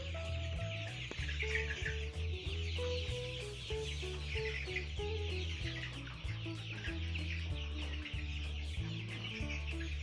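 A flock of month-old cockerels peeping and chirping in a constant chatter, over background music with a steady bass line. The birds are at the end of treatment for snot, and their rattling 'cekrek' breathing is described as greatly reduced.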